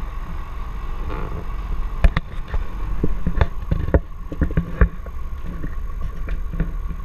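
Light aircraft's piston engine and propeller droning steadily, heard from inside the cabin. A string of sharp knocks and rattles comes between about two and five seconds in.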